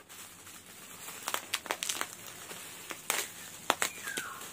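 Plastic bubble wrap crinkling and crackling in irregular bursts as hands handle and squeeze a wrapped part.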